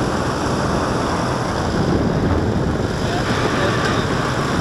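Paramotor engine and propeller running steadily in flight, heard through heavy wind noise on the microphone.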